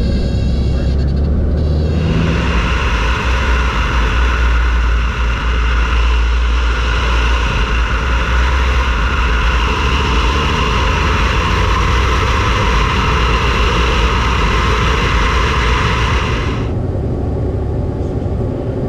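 Beechcraft Bonanza's six-cylinder engine and propeller droning steadily in the cockpit. A loud, high buzzing tone comes in suddenly about two seconds in and cuts off near the end.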